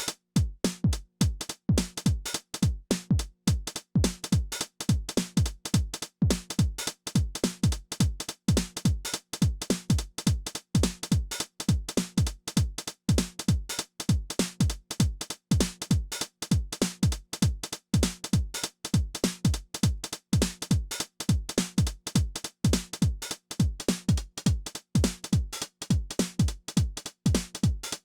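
Behringer RD-9 analog drum machine, a TR-909-style unit, playing a steady electronic beat. A deep kick drum falls about twice a second under dense hi-hat and cymbal hits.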